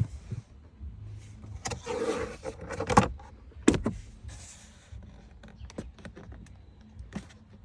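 Plastic car interior trim being pulled and worked loose by hand: scraping and a series of sharp clicks and knocks, the loudest about three seconds in.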